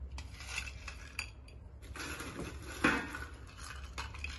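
Small ice cubes rattling and clinking as they are scooped and tipped into a glass, with the loudest clink about three seconds in.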